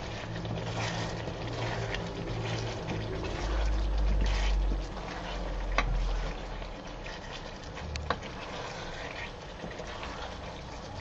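Diced potatoes bubbling and sizzling in white wine in a frying pan while a wooden spatula stirs them, with a few sharp taps of the spatula against the pan. A low rumble comes about four seconds in.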